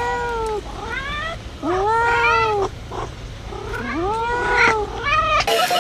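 Domestic cat meowing repeatedly: four or five drawn-out meows, each rising and then falling in pitch. Music cuts in near the end.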